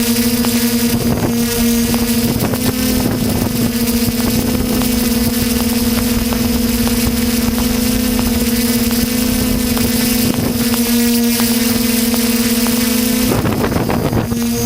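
Skyhero Little 6 hexacopter's electric motors and propellers humming steadily in flight, heard from a GoPro mounted on the drone, with wind noise on the microphone. The steady pitch breaks off about 13 seconds in and comes back just before the end.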